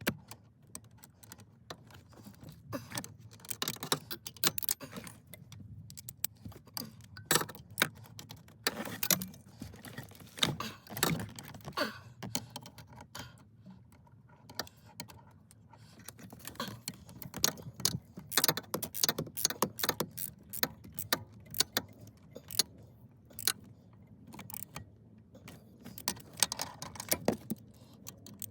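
Irregular small clicks and metallic clinks, coming in quick clusters, from tools and small metal parts being handled.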